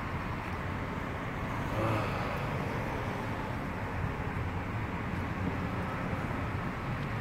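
Steady low rumble of road traffic, with a brief faint pitched sound about two seconds in.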